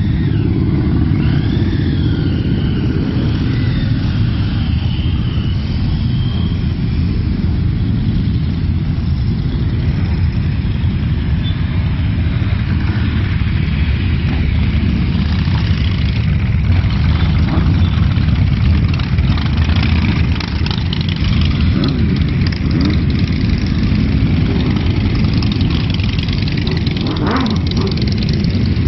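A convoy of many motorcycles and scooters riding past, their engines making a steady, loud, continuous rumble as the bikes go by one after another. A wavering high tone sounds over it for the first several seconds.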